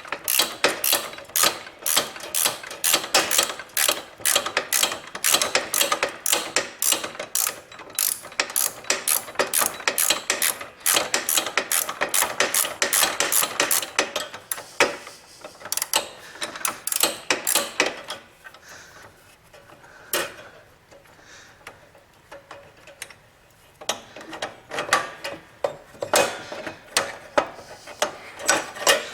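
A ratcheting 5/8-inch wrench clicking in quick repeated strokes as a freshly loosened nut is backed off a snowblower's friction-wheel shaft. The clicking thins out about halfway through, pauses, then picks up again near the end.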